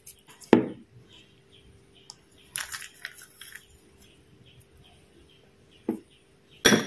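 Small clicks and soft knocks of shelled pistachios being picked up by hand and pressed onto the top of a cake in a metal tin, with one sharper knock about half a second in. A faint steady hum runs underneath.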